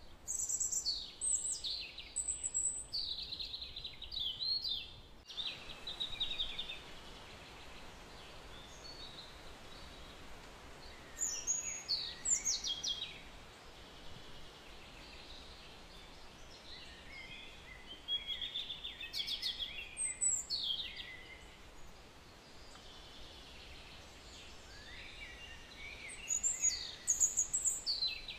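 A songbird singing in short bursts of high, quickly falling chirps, four phrases a few seconds apart, over a steady background hiss.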